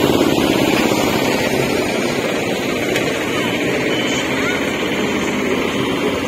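Sea surf breaking and washing over the rock boulders of a sea wall: a steady rushing noise with wind rumbling on the microphone.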